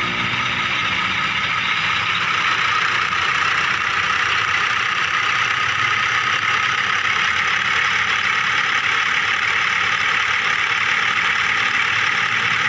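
Remote-control miniature vehicle running, a steady high motor whir with no let-up.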